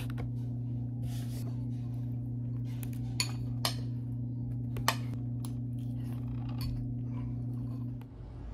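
Three sharp clinks of tableware, about a second apart, over a steady low hum from an appliance; the hum cuts off near the end.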